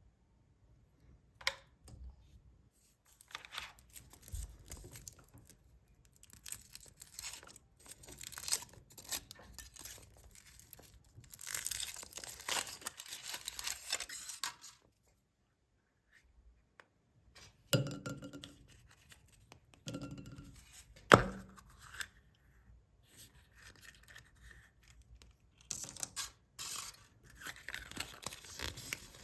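Foil wrappers of chocolate surprise eggs being torn and crinkled by hand in irregular stretches, with a few sharp clicks; one near the end of the second third is loudest.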